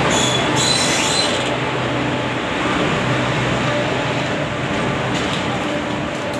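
ICF passenger coaches of an arriving express train rolling past: a steady rumble of wheels on rail, with a brief high squeal in the first second and a half.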